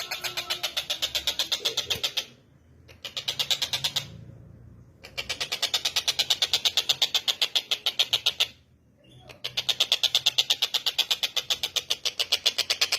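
Tengkek buto (a kingfisher) calling: a fast, even series of sharp, high chattering notes, about seven a second, in long runs broken by two short pauses.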